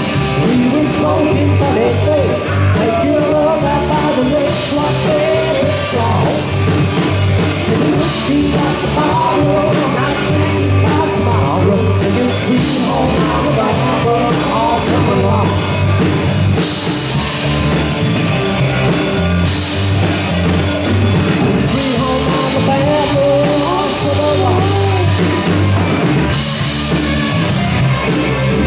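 A rock band playing live, with a drum kit keeping a steady driving beat under a wavering melodic line.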